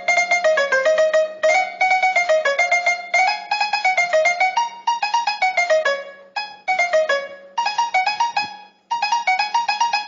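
Casio CTK-2400 electronic keyboard playing quick runs of notes in a plucked-string voice, in short phrases with brief breaks, many running downward.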